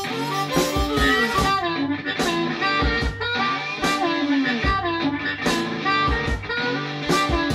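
Blues track with electric guitar playing bending notes over a steady beat. A diatonic blues harmonica plays along at the start, then drops out as the guitar takes over.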